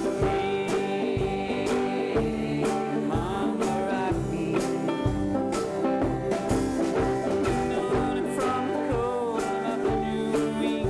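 Ukuleles strummed together in a steady country-folk rhythm, with a wavering melody line carried over the chords.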